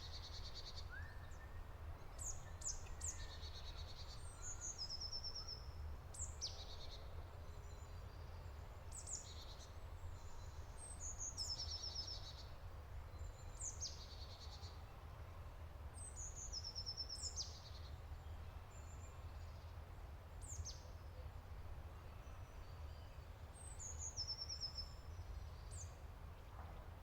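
Wild songbirds singing: short, high phrases of quick sweeping notes and rapid trills, repeated every two to three seconds, over a low steady rumble.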